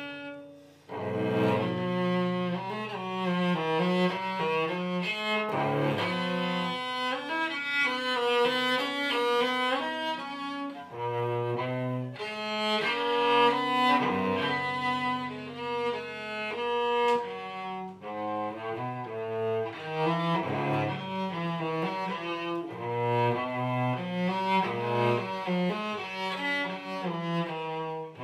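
A cello bowed, playing a melody of held notes, with a brief break about a second in.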